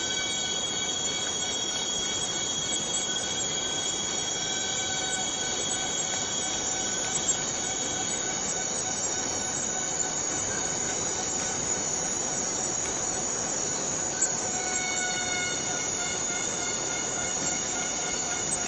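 Chorus of cicadas in a forest: a dense, steady high buzzing, with several individual drones standing out and fading in and out, and a few faint ticks.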